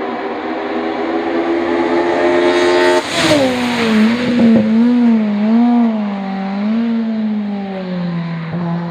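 Opel Kadett C hillclimb car's engine at high revs, the pitch rising slowly, then dropping suddenly about three seconds in at its loudest moment as the car passes close. After that the revs waver up and down several times and then fall away as it goes off.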